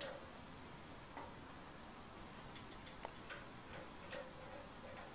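Faint, irregular small clicks and taps of metal clamp parts as a support clamp's knob is turned and its rod is worked by hand.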